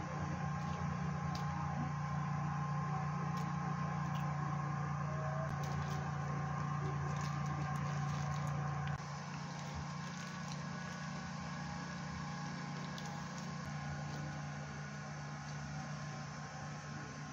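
Steady low machine hum with a few held tones, a little quieter from about nine seconds in, with faint scattered clicks.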